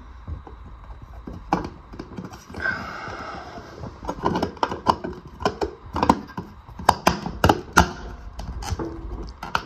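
Hands handling a small plastic thermostat module and its white electrical cable. There is a stretch of rustling and scraping about three seconds in, then an irregular run of small plastic clicks and knocks.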